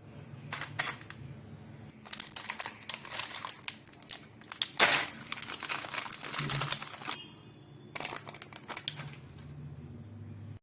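Packaging crinkling and rustling in irregular bursts as a parcel is handled and opened, loudest about five seconds in, over a steady low hum.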